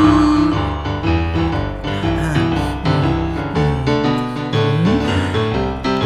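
Background music led by piano, with a few sliding notes.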